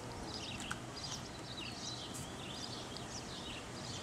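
Small birds chirping repeatedly over a steady outdoor background hiss.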